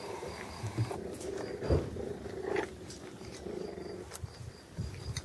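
Puppies growling as they play-fight, with a few short clicks and rustles. An insect chirps in a steady pulsing pattern in the background.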